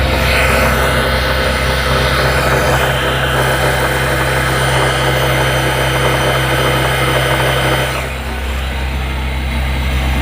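Tata Ace BS6 petrol engine running steadily with its repaired alternator charging. A higher-pitched part of the sound drops away briefly about eight seconds in, then picks up again.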